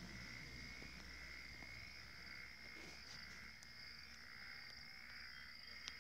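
Faint, steady chirring of insects at two pitches, one high and one lower, with a single small click near the end.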